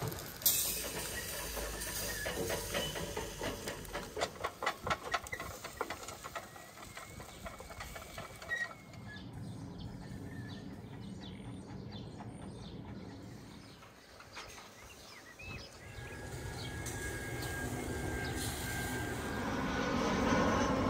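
Whole sturgeon on skewers crackling and sizzling over hot charcoal, with a quick run of sharp pops through the first several seconds. Later a steady low rumble swells and grows louder near the end.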